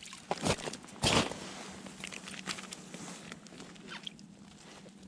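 Winter clothing rustling and scattered clicks and knocks as a small fish is pulled up through an ice-fishing hole and taken in hand; the loudest is a short scuffing burst about a second in.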